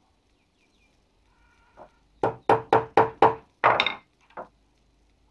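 A hen cackling: five quick clucks on one pitch, about four a second, then a longer, louder squawk and a last short cluck.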